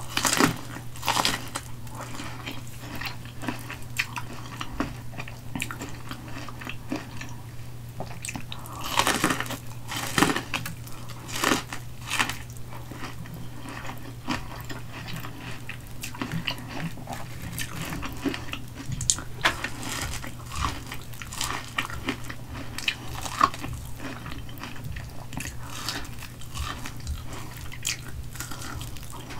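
Close-miked biting and chewing of elote, a boiled corn cob coated in mayo and crushed Hot Cheetos: repeated crunchy bites of the kernels and chewing, the loudest bites about a second in and again between about nine and twelve seconds in.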